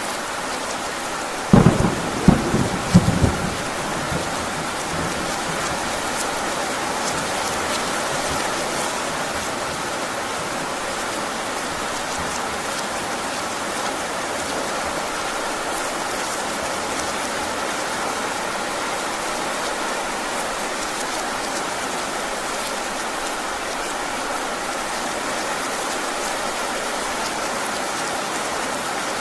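Heavy rain falling steadily, with a clap of thunder about a second and a half in: a few sharp low cracks over about two seconds, then only the rain.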